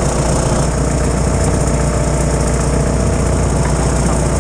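Off-road 4x4's engine idling steadily.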